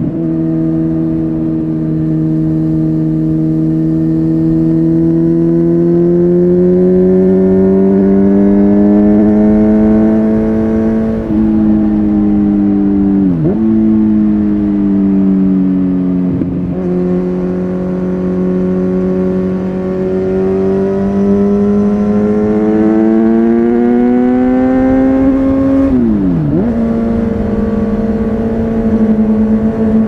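Kawasaki Z900's inline-four engine through an Akrapovic carbon full exhaust system, pulling under load with its pitch slowly climbing. The pitch dips sharply and recovers twice, about halfway through and again near the end, then the engine runs steady.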